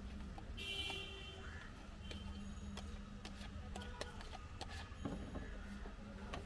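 Street background of low traffic rumble with a steady low hum, a brief high-pitched tone just under a second in, and scattered light clicks and taps of plastic curd tubs and a spoon handled on a steel counter.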